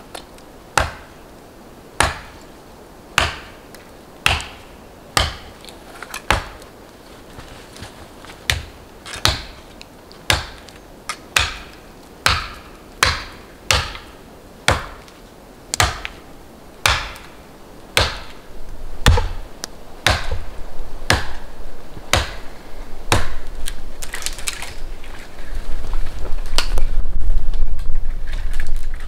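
An axe chopping into the base of a young tree, about one sharp stroke a second. In the last ten seconds the chopping gives way to a growing rustle and crackle of branches as the cut tree is pushed over and falls through the neighbouring boughs.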